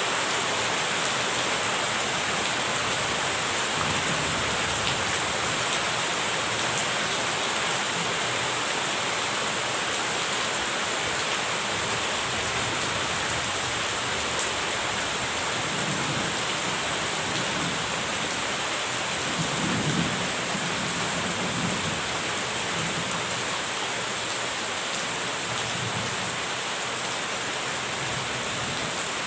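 Steady heavy rain falling, with low rolls of distant thunder rumbling under it, the strongest about two thirds of the way through.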